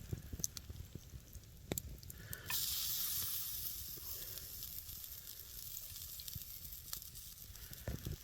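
Marinated chicken wings sizzling on a grill over campfire embers. The sizzle rises suddenly about two and a half seconds in, as if fresh food hit the heat, then slowly eases off, with a few sharp clicks before it.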